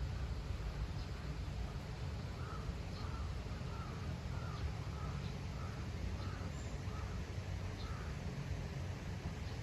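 A crow cawing in a quick run of about a dozen calls, roughly two a second, over a steady low rumble.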